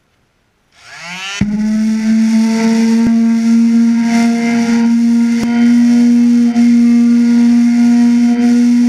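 DeWalt quarter-sheet palm sander switched on: the motor winds up quickly in pitch in about half a second, then runs at full speed with a loud, steady high hum and hiss as the pad works across plywood.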